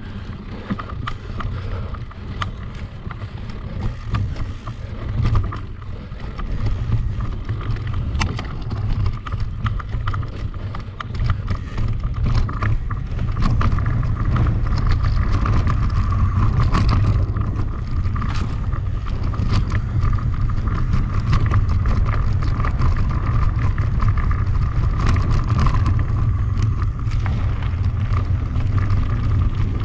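Wind rushing over the microphone of a camera riding on a mountain bike in motion, with clicks and rattles from the bike over rough ground; it gets louder about halfway through, as the bike picks up speed.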